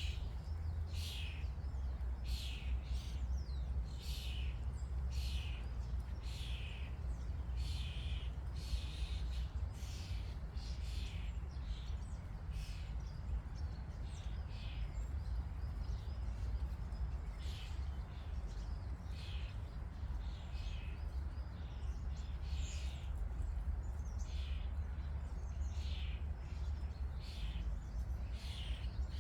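Wild birds calling over and over, short chirps that each slide down in pitch, about one or two a second, over a steady low rumble.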